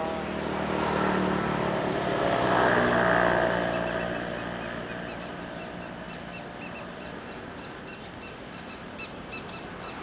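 A motor vehicle's engine running, growing louder to a peak about three seconds in and then fading away. From about five seconds in, faint short high pips repeat evenly, a few each second.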